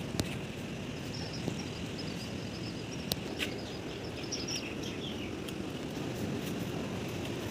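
Birds chirping: a string of high, wavering chirps for a few seconds in the first part, over a steady outdoor background hiss.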